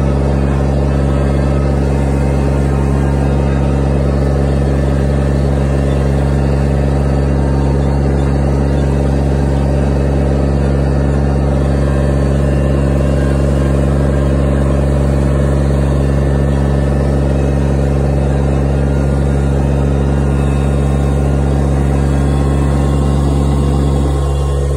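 Garden tractor's engine running at a steady speed while the tractor drives across a lawn, an even, constant drone. Just before the end the pitch shifts slightly and it gets a little quieter.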